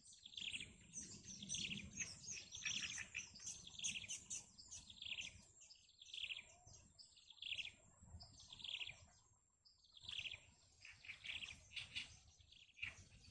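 Newly hatched chick in the nest peeping: short, high calls that slide downward, repeated about three every two seconds, with a brief pause about three-quarters of the way through.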